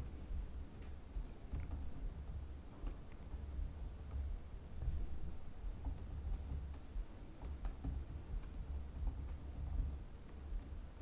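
Laptop keyboard typing: scattered soft key clicks over a steady low hum.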